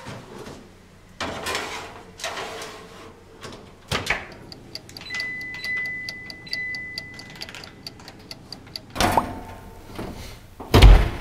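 A baking tray is slid into a wall oven with a scraping rattle, and the oven door shuts with a knock about four seconds in. A steady run of small ticks follows, about four a second, with a short steady beep tone under it. Two heavier thumps come near the end, the second the loudest.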